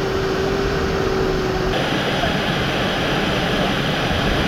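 Steady rushing roar of Mackenzie Falls, a large waterfall, with a single steady tone held for about the first two seconds.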